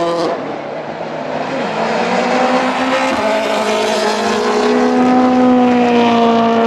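Ford Fiesta RS WRC rally car's 1.6-litre turbocharged four-cylinder engine running hard at high revs, its note held nearly steady and getting louder as the car approaches.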